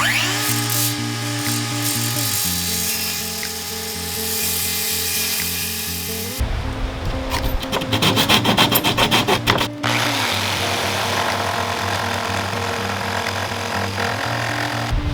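Power tool working wood under background music, with a run of rapid rhythmic strokes about halfway through.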